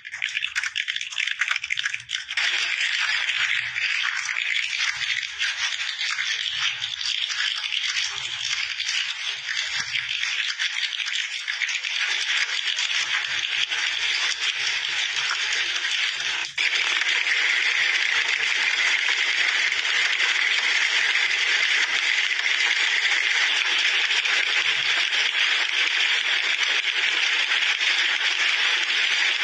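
Many computer keyboards typed on at once, a dense, continuous clatter of keystrokes like a hall full of people taking a typing test. There is a brief dip about halfway through, after which the clatter is slightly louder.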